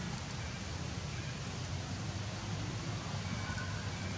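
Steady outdoor background noise: an even hiss over a low hum, with a few faint short high-pitched peeps.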